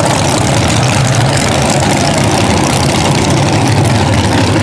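Drag race car engines idling loudly and steadily.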